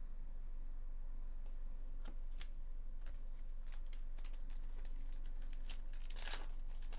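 Trading cards being handled, with light clicks and ticks. Near the end comes a brief crinkle as a sealed Bowman Chrome card pack's wrapper is torn open. A steady low hum lies underneath.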